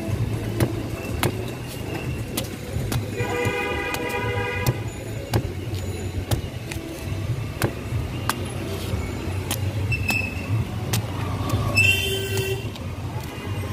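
Curved machete chopping into toddy palm fruit husks, a sharp chop every second or so, over a steady rumble of street traffic. A vehicle horn sounds for about a second and a half about three seconds in, and another short horn near the end.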